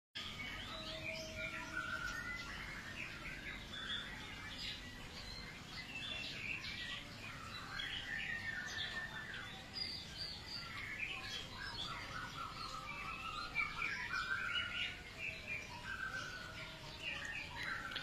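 Many white-rumped shamas (murai batu) calling and singing together in a colony breeding aviary: a steady chorus of overlapping chirps and short whistled phrases, some sliding in pitch, over a faint low background hum.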